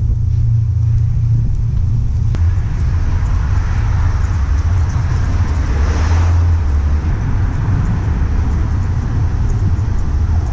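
A vehicle passes by, its noise swelling to a peak about six seconds in and then fading, over a steady low rumble.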